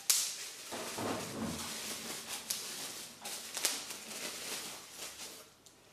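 Plastic bubble wrap crinkling and rustling as it is pulled off a glass bottle, with scattered sharp crackles. The sound dies away near the end.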